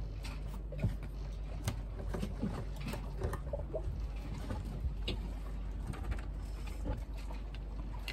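Scattered light clicks and knocks of a plastic gas can and its pour spout being handled, over a steady low rumble.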